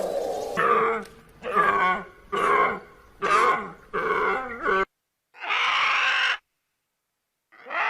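Animal calls: a run of five short calls in quick succession, then two longer, harsher calls separated by abrupt silence.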